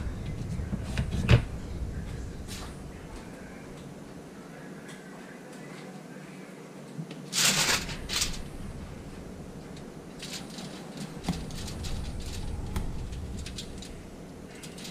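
Handling noises at a kitchen counter: aluminium foil crinkling as a whole fish is lifted and moved on a foil-lined sheet pan, with a few light clicks and knocks. The loudest is a short rustle about halfway through.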